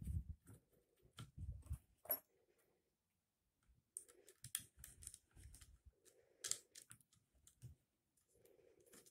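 Faint clicks and light knocks of a holster hanger and belt parts being fitted together by hand, with a few soft low bumps and a short pause partway through.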